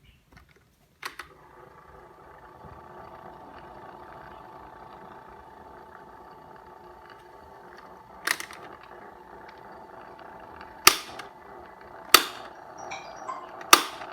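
Asahi AF 6073 electric fan switched on with a click, its motor then running with a steady hum, with four loud, sharp clicks in the second half.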